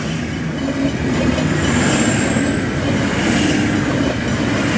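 V/Line passenger train passing at speed: a steady, loud rumble of wheels on the rails, with a faint high whine above it.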